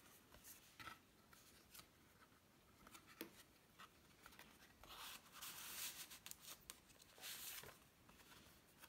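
Faint rustling and sliding of paper and card as tags and cards are drawn out of a junk journal's paper pockets and handled, with a few light taps; the longest rustles come about halfway through and again near the end.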